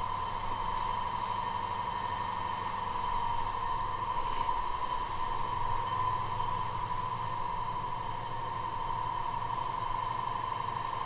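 Jeep Wrangler driving at a steady speed on its new wheels and tyres: a constant drive drone with a steady high whine over it.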